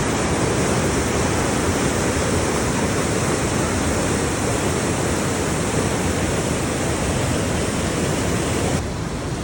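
Rushing water of a waterfall, a loud steady rush with a deep rumble and a bright hiss. The hiss softens slightly near the end.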